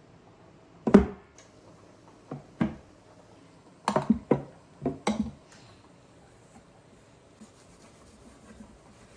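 A series of sharp knocks and clatters of hard objects being handled and set down: one about a second in, then two, then small clusters around four and five seconds.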